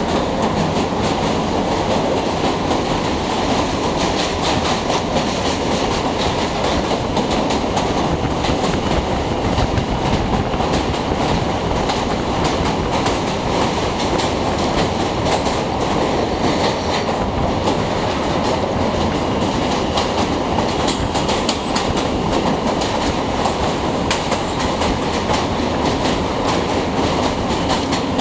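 New York City subway train running along a steel bridge: a steady rumble with a dense, rapid clatter of wheels over rail joints. It is heard from a car moving alongside, with the car's own road noise mixed in.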